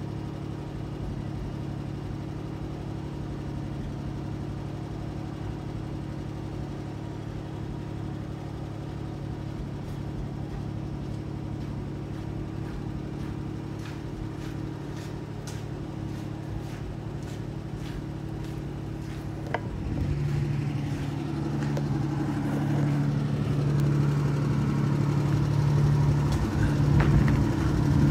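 1946 Dodge Power Wagon's flathead six-cylinder engine idling steadily at an even pitch after a tune-up with new points, condenser, cap, rotor and spark plugs. About two-thirds of the way through it becomes noticeably louder and closer.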